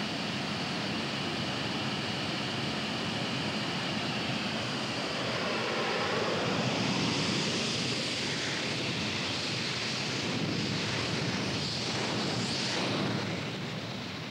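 The Rolls-Royce aircraft jet engine of a jet-powered show truck running at full power on a demonstration run. It makes a steady rushing roar that grows louder about six seconds in and fades near the end as the truck passes.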